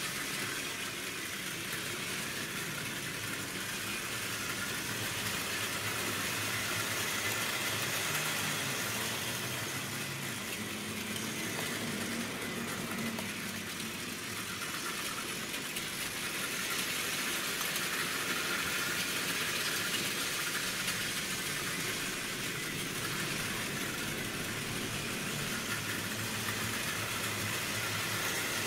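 Hornby Dublo Co-Co diesel-electric model locomotive running on its track pulling a rake of wagons: a steady motor whir with wheel and track rattle, getting slightly louder and softer a few times as the train moves round the layout.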